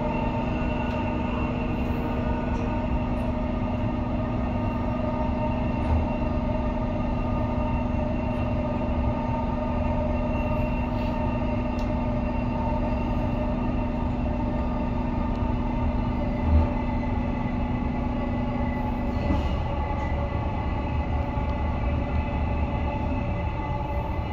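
Dubai Metro train running between stations, heard from inside the carriage: a steady rumble of wheels on rail under a hum of motor tones. The hum shifts about nineteen seconds in, and there are a couple of light knocks.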